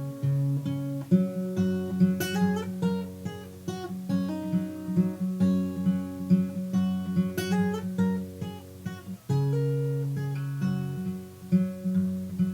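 Acoustic guitar playing an instrumental riff: plucked notes over held bass notes, with an occasional strum.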